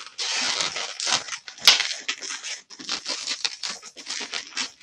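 Latex 260 modelling balloons rubbing against each other and against the hands as a bubble is twisted and locked onto an ear twist, a quick run of irregular short scrapes with one sharp click about a second and a half in.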